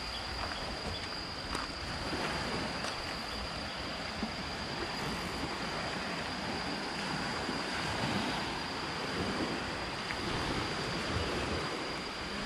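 Small waves washing onto a sandy shore, with wind buffeting the microphone and a steady high whine underneath.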